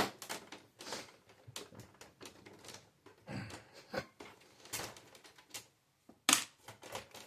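Irregular clicks, taps and clatter of hard plastic and metal parts as a printer is being taken apart by hand, with one louder knock about six seconds in.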